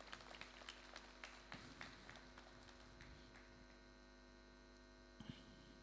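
Near silence: a steady electrical mains hum, with faint scattered clicks that are thickest in the first couple of seconds.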